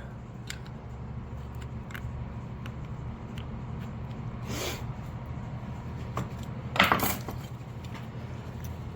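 Light metallic clinks and rattles of hand tools and small metal parts being handled, with two louder clatters about four and a half and seven seconds in, over a steady low hum.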